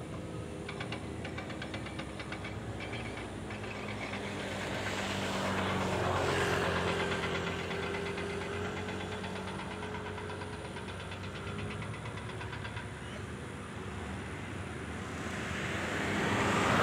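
Motor vehicle engines running steadily, with a rapid fine ticking at times. A vehicle swells past about six seconds in, and another grows louder near the end.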